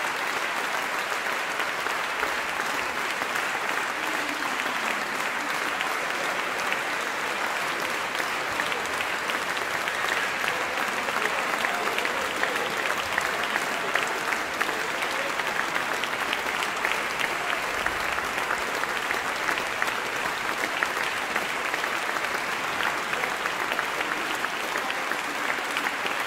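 Audience applauding, a long, steady round of clapping that neither swells nor fades.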